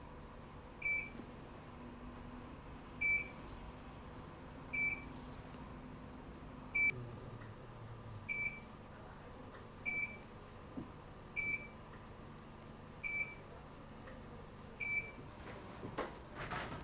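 Short electronic beeps from a Biograph meridian-measuring device, nine of them, about one every one and a half to two seconds. Each beep marks a skin-resistance reading taken with the probe at successive meridian points. A few faint clicks come near the end.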